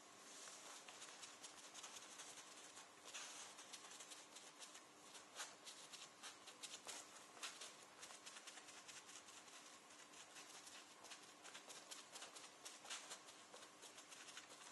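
Faint, quick, irregular soft taps of a sponge dabbing clear coat sealer onto a leather jacket, over a faint steady hum.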